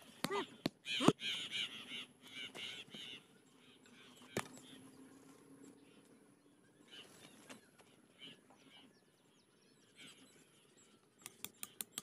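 Birds calling and chattering in quick repeated notes for the first few seconds. A single sharp click comes about four seconds in, and a quick run of sharp taps near the end.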